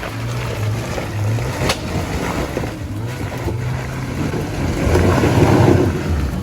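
Jeep Wrangler engine running under throttle as it works at a rock climb, with a steady low hum that swells louder about five seconds in.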